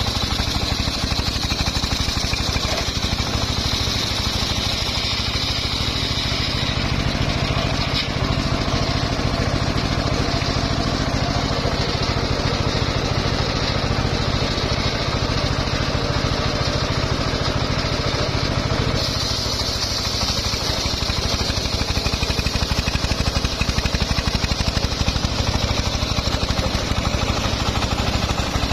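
Engine-driven homemade circular sawmill running steadily while sawing mahogany. The tone changes about a quarter of the way in and changes back about two-thirds of the way through.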